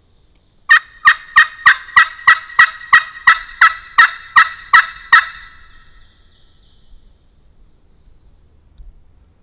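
Turkey call run by a hunter, sounding a long series of about fourteen evenly spaced hen yelps, about three a second, loud and close, stopping about five seconds in. It is calling to gobblers, which answer this calling.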